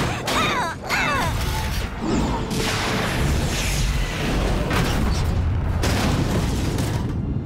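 Cartoon action soundtrack: dramatic music under booming effects and the rush of jet engines. A few falling whistling glides come in the first second or so, then a dense, steady rush that drops out briefly near the end.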